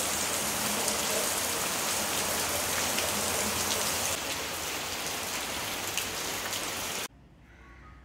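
Rain falling steadily onto puddled ground and garden leaves, a dense even patter. It cuts off suddenly about a second before the end.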